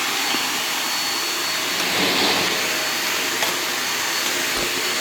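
Shark Navigator NV22L upright vacuum's suction motor running steadily, a continuous rushing of air, swelling slightly about two seconds in, with a faint click a little later.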